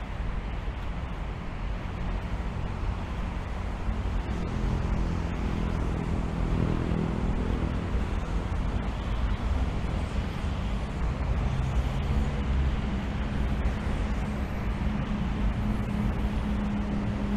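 Steady rumble of road traffic, with an engine's low hum growing louder in the second half.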